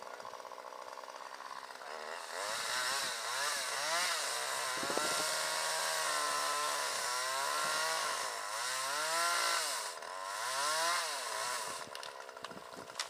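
Chainsaw idling, then revved and cutting into chinaberry wood from about two seconds in. Its engine pitch rises and falls again and again under load for about ten seconds, then drops back near the end.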